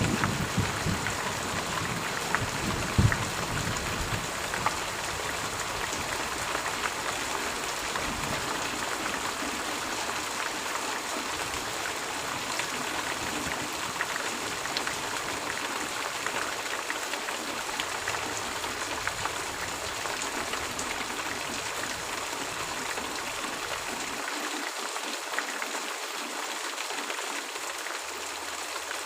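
Steady rain, an even hiss with scattered faint drop ticks. A low rumble under it in the first few seconds fades away.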